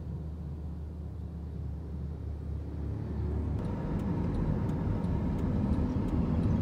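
Car noise heard from inside the cabin: a low steady rumble that grows louder and rougher about three and a half seconds in, as the road noise of driving comes up.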